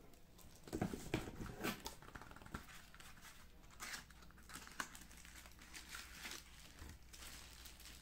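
Cardboard and plastic packaging rustling and crinkling as a box is unpacked by hand, in irregular short rustles and clicks that are loudest about a second in.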